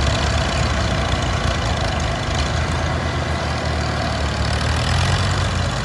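Heavy farm machinery's diesel engine running steadily with a constant low rumble.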